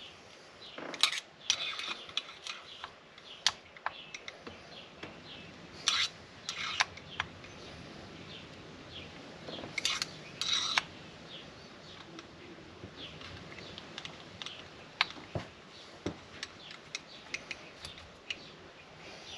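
Scattered small metallic clicks and clinks of hand tools and chainsaw parts being handled during reassembly of a Husqvarna 353, with a few louder clusters about one, six and ten seconds in.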